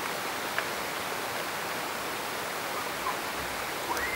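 Steady rushing outdoor noise throughout. About four seconds in, a high whistling note rises quickly and holds: the start of a bull elk's bugle.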